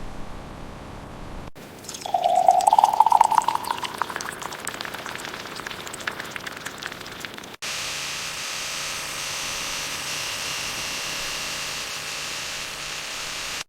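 Liquid pouring into a container, its pitch rising as it fills, with many small splashes. After an abrupt cut, a steady hiss.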